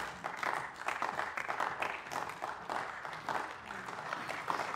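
Applause from members of a parliament after a speech: a fairly sparse group of people clapping, with individual claps standing out.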